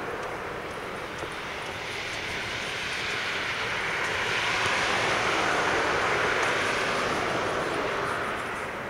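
Aircraft passing overhead: a rushing engine noise that swells to its loudest about five seconds in, then fades.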